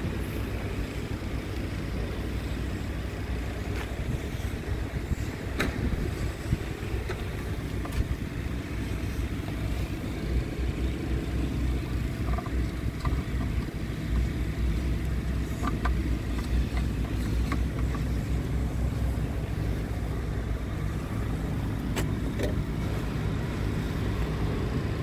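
Scania P270's five-cylinder diesel engine idling steadily, with a few light clicks as plastic filler caps are opened.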